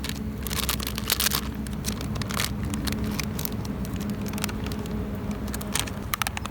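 Wood fire crackling, with irregular sharp pops and snaps, over a steady low hum.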